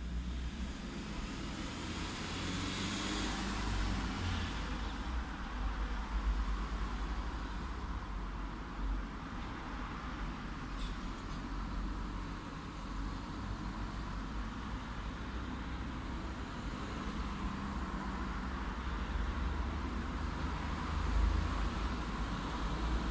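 Light road traffic: a steady low rumble of distant cars, with one vehicle passing closer a few seconds in.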